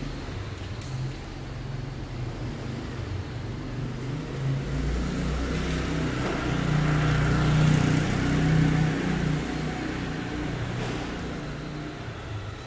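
A motor vehicle engine passing by: a low hum that grows louder to a peak about two-thirds of the way through, then fades.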